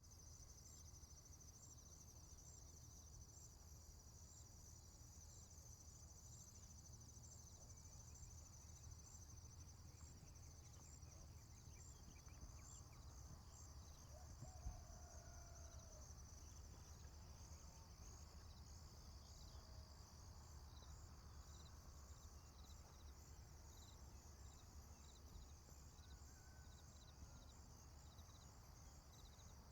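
Faint rural farm ambience: crickets chirping in a steady, high, finely pulsing drone over a low rumble. There are a few faint distant calls around the middle and a soft knock about halfway through.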